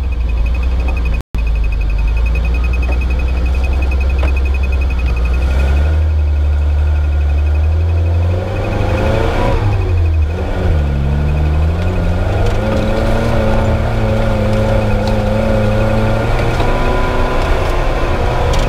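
Suzuki Jimny Katana's F10A four-cylinder engine, breathing through a 4-into-1 header, running at low speed off-road. Its note drops and climbs again about halfway through, then holds steady, over a thin steady high whine. The sound cuts out for an instant about a second in.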